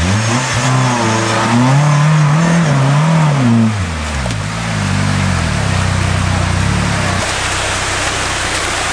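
Off-road 4x4's engine revving in rising and falling surges as it crawls up a rocky creek bed, then running steadier at lower revs until it cuts off about seven seconds in. Rushing creek water runs underneath throughout.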